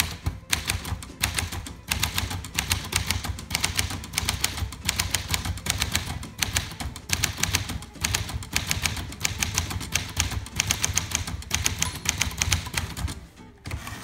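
Fast typing on a 1947 Smith Corona Sterling manual portable typewriter: a dense run of key and typebar strikes.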